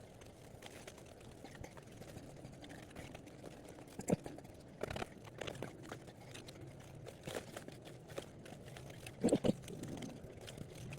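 Metal screwdriver scraping and prying at rock, with scattered sharp clicks and crunches of crumbling rock. There are louder knocks about four seconds in and again near nine seconds.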